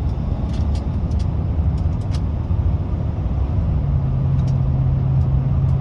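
Car engine and road noise while accelerating in third gear, with a misfire the driver says he felt. About four seconds in a steady low hum sets in, which the driver takes for the automatic transmission shifting into fourth.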